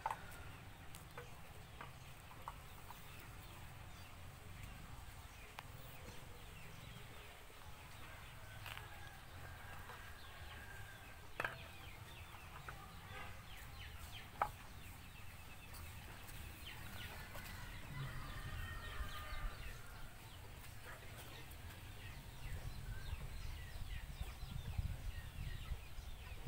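Poultry clucking and calling quietly in the background, with two sharp knocks a few seconds apart near the middle, over a low rumble.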